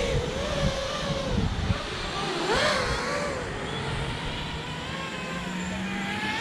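FPV freestyle quadcopter flying overhead, its motors and propellers whining with a pitch that wavers up and down as the throttle changes. A quick surge in pitch comes about two and a half seconds in.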